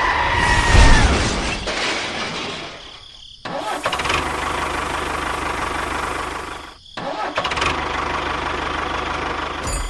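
A motor running steadily, in three stretches that cut off abruptly at about three and a half and seven seconds.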